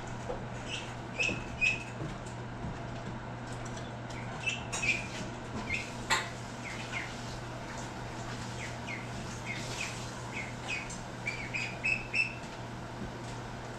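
Birds chirping and squawking in short, repeated calls, over a steady low hum. There is a single sharp knock about six seconds in.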